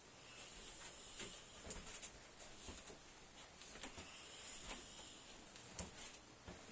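Faint snoring from a distant room: two slow breaths a few seconds apart, with scattered soft clicks.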